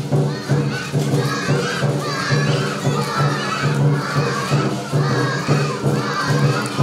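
Crowd of young children shouting and cheering together. Underneath runs a steady low beat of about two pulses a second.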